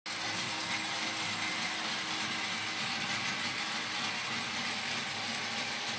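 RB5X robot's electric drive motors and gearing running steadily as it rolls forward in roaming mode, a constant mechanical hum with hiss.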